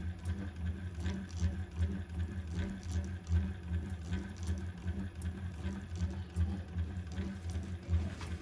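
Singer 111W155 industrial walking-foot sewing machine running steadily to wind a bobbin, a pulsing low hum with faint ticks on top.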